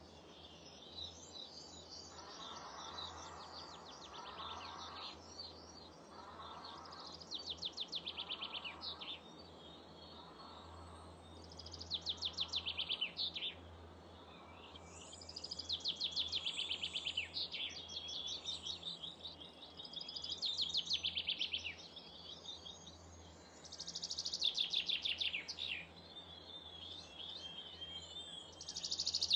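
Small garden songbirds singing: short phrases of rapid trilling notes come every few seconds, each lasting one to two seconds, the loudest near the end, over a faint steady low hum.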